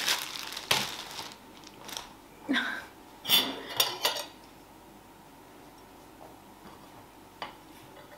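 Plastic bread bag crinkling, then a few sharp clinks of a table knife against a plate as bread is laid out and spread with peanut butter, followed by one light tap near the end.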